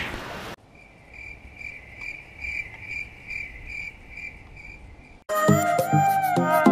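A cricket chirping in a steady, even pulse of about two and a half chirps a second, then cut off about five seconds in by loud music with plucked, sliding notes.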